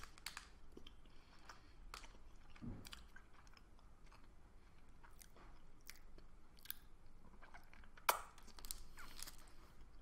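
Faint mouth sounds of someone chewing a soft chocolate-mint candy bar, with scattered small wet clicks and a slightly louder click about eight seconds in.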